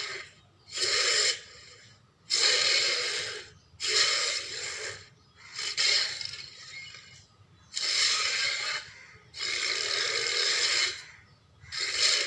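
Carcharodontosaurus dinosaur sound effects: a run of about seven rough, breathy calls, each about a second long, separated by short pauses.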